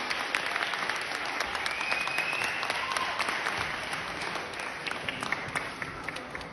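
Audience applauding, with a brief cheer about two seconds in; the clapping slowly fades.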